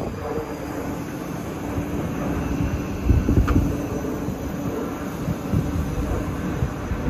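Passenger train running through a station: a steady hum over the rumble of wheels on the track, with a single sharp click about three and a half seconds in.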